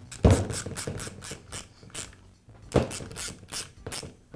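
Small ratcheting hand driver clicking in quick runs as it tightens the screws holding the shoe into a reciprocating saw's housing. There is a heavier knock at the start and a short pause partway through.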